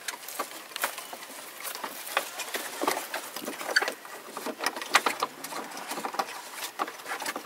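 Irregular clicks, taps and light scrapes from a 4x4 moving slowly along a rough, overgrown trail.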